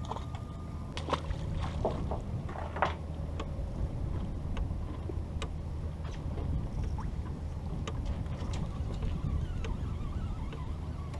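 Fishing boat's engine running with a steady low hum, with scattered light clicks and knocks on board.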